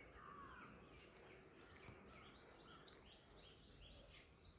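Faint birdsong: a steady series of short, high chirps, about three a second, over quiet outdoor background noise.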